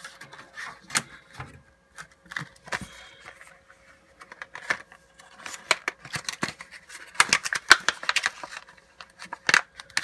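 Plastic battery packaging being worked open by hand: a run of crinkles, clicks and snaps, busiest in the second half.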